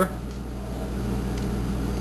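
A steady low hum, like an appliance or fan running, with no other sound standing out.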